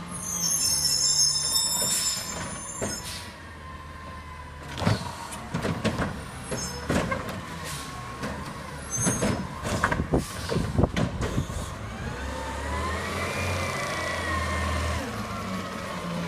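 Heil Curotto-Can garbage truck on an Autocar chassis working a curb: the diesel engine runs under everything while the air brakes hiss near the start. A run of sharp clattering knocks follows as the Curotto-Can arm tips a recycling cart and the recyclables tumble out. Near the end a whine rises and falls as the arm moves.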